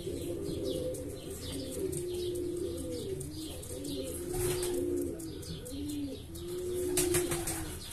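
Domestic pigeons cooing in a loft: repeated low, drawn-out coos, several overlapping, with faint high chirps above them.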